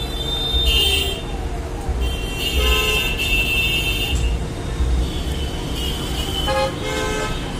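Vehicle horns honking in road traffic: a short blast about a second in, a longer one from about two and a half to four seconds, and another near the end, over a steady low traffic rumble.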